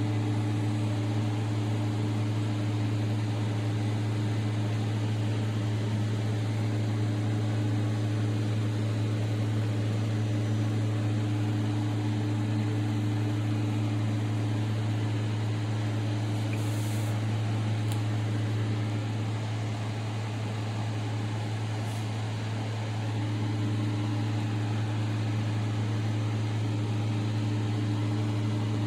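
A steady, low mechanical hum over an even background hiss, dipping slightly about two-thirds of the way through.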